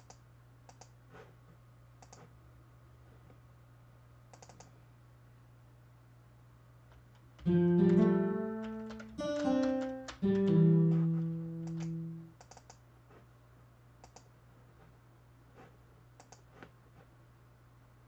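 Scaler 2 acoustic guitar patch plays a short phrase of three chords from about seven and a half seconds in, each ringing out, with the sound fading by about twelve and a half seconds. Faint mouse clicks come before and after.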